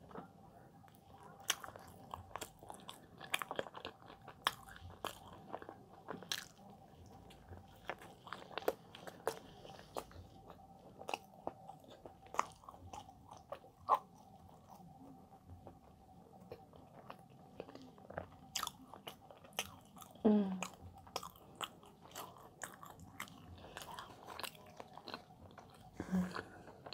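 A person chewing and biting soft chestnut bread with the mouth, making a run of sharp, irregular wet mouth clicks and smacks.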